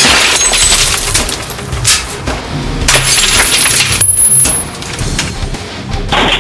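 Drinking glasses shattering as they are hit by a coilgun projectile, several sharp crashes of breaking glass over background rock music with a steady beat.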